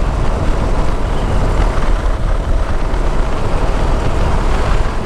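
Motorcycle cruising at a steady speed: the engine running evenly under a constant rush of wind and road noise.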